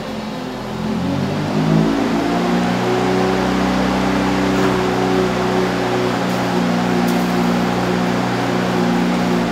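Natural-gas ice resurfacing machine's engine running. About two seconds in it speeds up to a steady higher hum and holds there while its hydraulics tip up the snow tank to dump.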